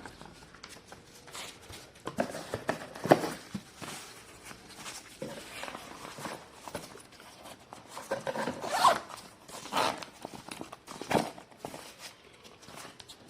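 Hands handling the vacuum cleaner's packaging and accessories: irregular rustling and rasping strokes with a zip-like sound and a few sharp clicks, the sharpest about three seconds in. The vacuum motor is not running.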